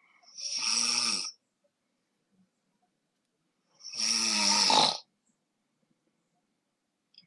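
A person snoring: two loud snores about three seconds apart, each lasting about a second, the second one a little longer.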